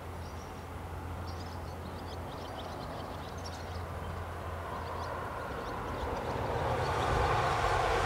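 Series 87 Twilight Express Mizukaze diesel train approaching: a steady low engine drone, with running and rail noise building and growing louder over the last three seconds. Birds chirp faintly in the first half.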